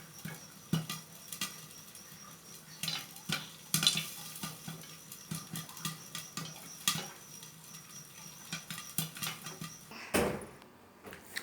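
Popcorn kernels popping in a covered pan, in irregular sharp pops that hit the lid, with one louder knock about ten seconds in. The kernels have just started popping in the hot melted-ice-cream coating.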